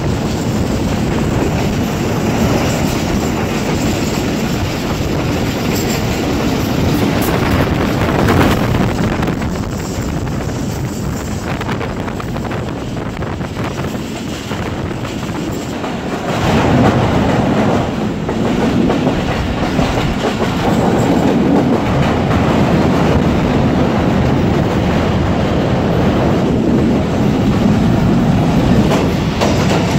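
Passenger coach wheels running over the rails at speed, heard through an open coach window: a steady rumble with the clickety-clack of rail joints, louder from about halfway through.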